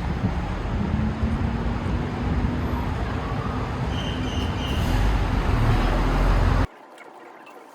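Steady low rumble of road traffic, cutting off abruptly near the end to a much quieter background.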